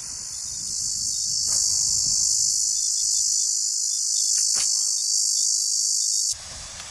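Dense, steady high-pitched chorus of insects chirring. It cuts off suddenly near the end.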